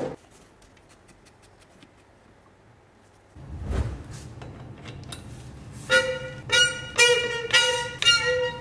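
A tight wheel bolt on a Renault Master 2 van's steel wheel creaking in a run of high squeals, about two a second, as it is broken loose with a long wrench on a 24 mm impact socket. A dull bump comes a few seconds before the squeals begin.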